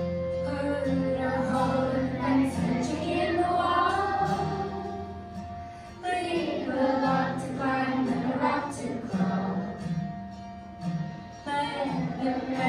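Music: a song with singing over instrumental accompaniment.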